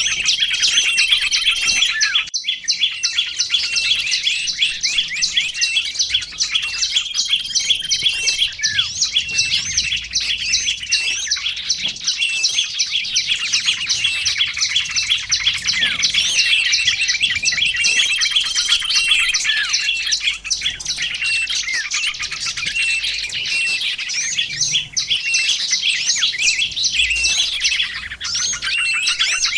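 Small songbirds chirping and twittering in a dense, unbroken chorus, several high-pitched calls overlapping in fast trills.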